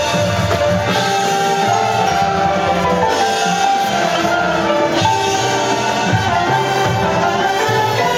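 High school marching band playing its field show, a dense mix of sustained melodic lines with mallet percussion such as marimba in the texture.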